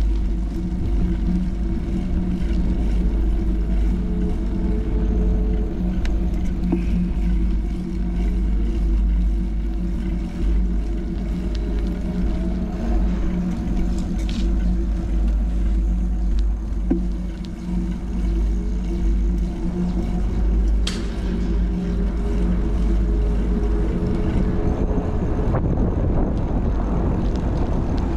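Steady low rumble with a constant motor hum holding the same pitch throughout, and two sharp clicks partway through. Wind buffets the microphone over the last few seconds.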